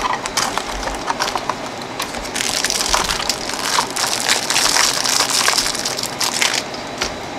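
Clear plastic cellophane packaging crinkling and crackling as it is handled and crumpled, in a dense run of small crackles.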